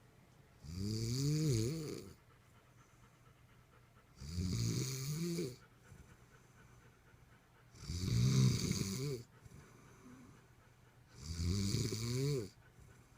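Snoring: four long snores, each about a second and a half, coming roughly every three and a half seconds. Each has a wavering pitched rattle over a breathy hiss. The snoring goes on with an anti-snoring device in use, which is not sure to be working.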